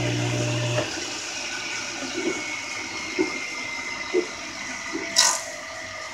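Small table saw switched off about a second in: the motor hum stops and the blade winds down with a steady whoosh. A few light knocks, and a louder clatter about five seconds in.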